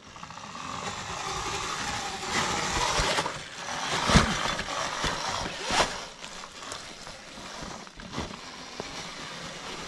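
Small electric kids' dirt bike climbing a rock slab, its faint motor whine wavering in pitch over a steady hiss, with two sharp knocks about four and six seconds in.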